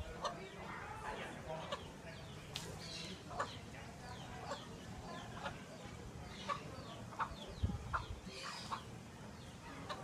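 Chicken clucking: short separate clucks about every second, with a few thin higher chirps among them.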